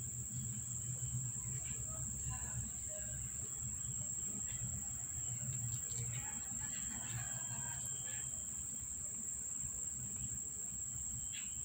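Steady high-pitched chirring of insects such as crickets, unbroken throughout, over a low rumble that eases off about halfway.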